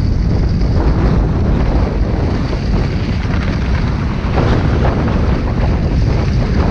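Wind buffeting the microphone of a camera carried by a skier moving downhill, loud and steady, over the hiss and scrape of skis sliding on packed, groomed snow.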